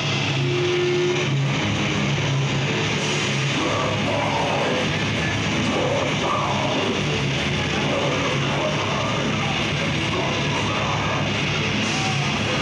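Death metal band playing live: a dense, loud wall of distorted guitars and drums, with the vocalist coming in over it a few seconds in.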